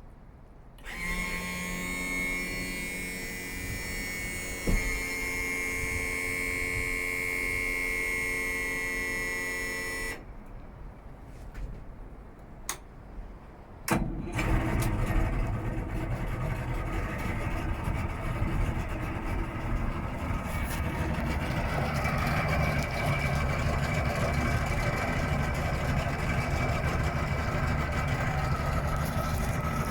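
Power tilt/trim motor of a 200 hp two-stroke outboard whining steadily for about nine seconds as the motor is tilted down, then a few clicks, and about fourteen seconds in the outboard engine starts and settles into a steady idle.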